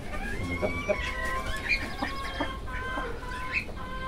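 A mother hen with her newly hatched chicks, calling. Short, thin calls come on and off throughout.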